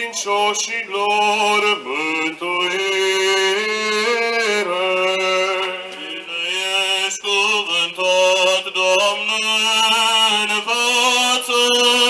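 Clergy chanting a Byzantine-rite funeral hymn in Romanian, male voices singing a melody over a steady held drone note.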